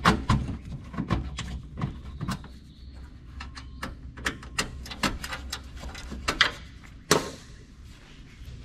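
Irregular sharp clicks and knocks of metal parts and a hand tool being handled, as brass motherboard standoffs are loosened with a socket tool. Several louder knocks stand out about a second in, about five seconds in and about seven seconds in.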